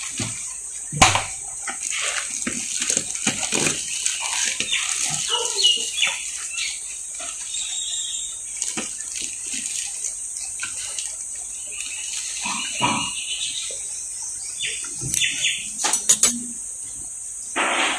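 Plastic wrapping crinkling and kraft packing paper rustling as storage containers with steel lids are taken out of a cardboard box. Knocks and clinks come as the containers are set down on a stone counter, the sharpest about a second in and again near the end.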